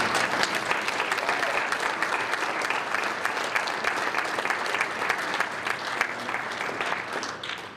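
Audience applauding, a dense steady clapping that dies away sharply near the end.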